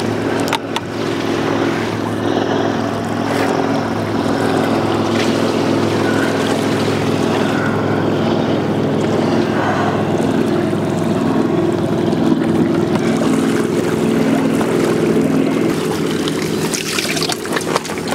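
Boat motor running steadily with an even hum, with sharper splashy noises near the end.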